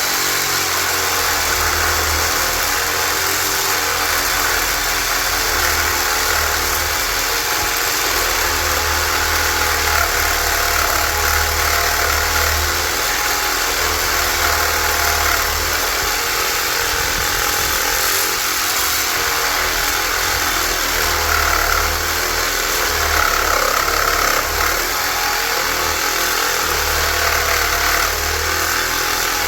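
Cordless reciprocating saw with a Diablo blade cutting steadily through the metal housing of a large electric motor. The saw starts just before and runs without a break.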